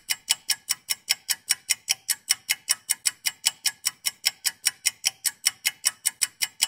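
Steady clock-like ticking, about five even ticks a second, unchanged throughout, laid on as a soundtrack.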